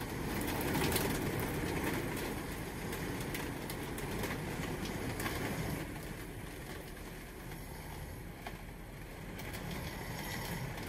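Heavy rain falling on an RV's roof and windows, heard from inside the RV: a steady hiss with scattered sharp drop hits, a little quieter for a few seconds past the middle.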